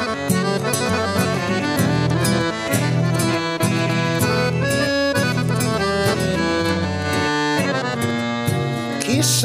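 Piano accordion playing a sevdalinka melody with sustained chords, over an acoustic guitar strummed in a steady rhythm.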